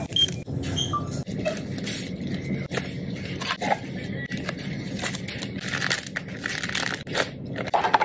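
Plastic food packaging crinkling and rustling with sharp crackles, as a cup of instant tteokbokki is unwrapped and its plastic packet handled, over a steady low hum. A couple of short checkout beeps sound in the first second.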